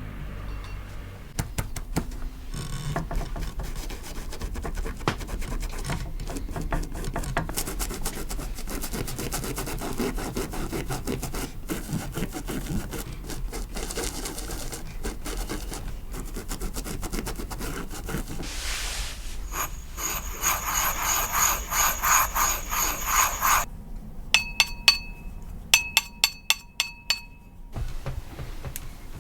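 Hand tools of kimono craftwork scraping and rubbing steadily against material. Near the end comes a quicker run of strokes that ring faintly, then a handful of sharp, light metallic clinks.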